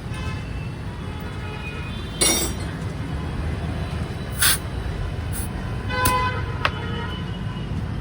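Steady traffic rumble with several short, sharp hisses and a brief horn-like tone about six seconds in.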